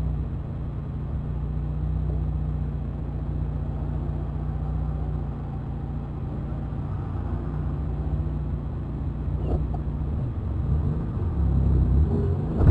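Car engine and road noise: a steady low drone that shifts and grows louder near the end.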